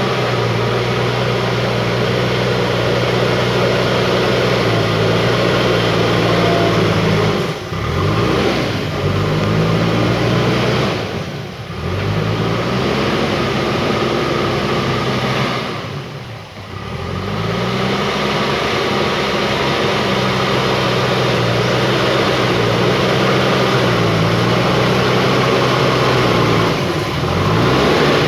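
JCB backhoe loader's diesel engine running hard at high revs; its pitch dips and climbs back up four times as the load and throttle change.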